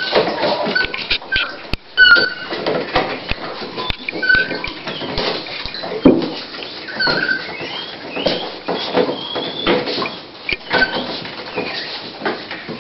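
Toy Pinscher scratching and digging at a fleece blanket in a whelping box, the restless nesting of a bitch at the start of labour: irregular rustling and scraping with many short clicks of claws, and short high squeaks now and then.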